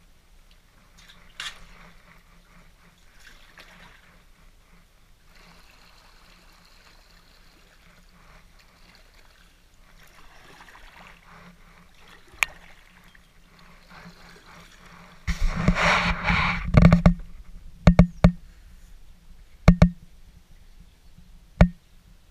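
Kayak paddle strokes in calm river water: water dripping and trickling off the blades with small splashes, then a loud rushing splash lasting about two seconds, followed by a handful of sharp knocks near the end.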